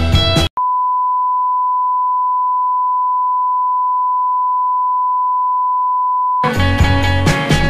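A steady single-pitched test-tone beep, the tone that goes with television colour bars, sounds for about six seconds. Background music cuts off just before it and comes back near the end.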